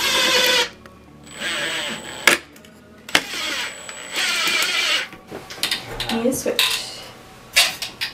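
Makita cordless impact driver driving screws through a wooden brace into plywood: three bursts of rapid hammering over a high motor whine, the last about two seconds long. A few sharp knocks of wood being handled follow near the end.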